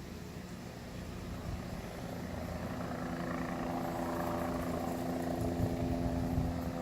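Low-flying search helicopter, its rotor beat growing louder as it draws nearer. A steady hum of several tones comes in about two seconds in.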